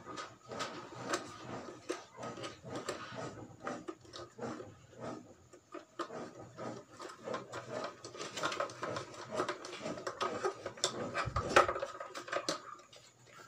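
Irregular plastic clicks, rattles and scrapes as a Bluetooth MP3 decoder module is pushed and seated into the cutout of a plastic speaker housing, with one louder knock near the end.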